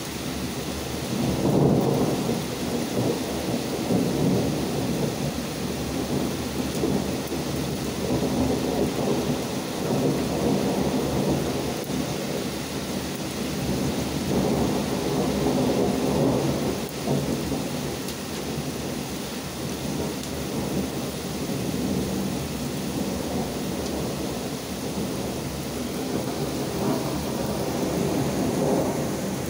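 Heavy rain and hail pouring down steadily, with thunder rumbling in repeated long swells. The loudest swell comes about two seconds in and opens with a sharp crack.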